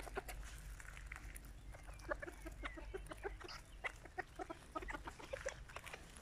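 A flock of Serama bantam chickens clucking softly while foraging: many short, low clucks from several birds, overlapping and scattered throughout.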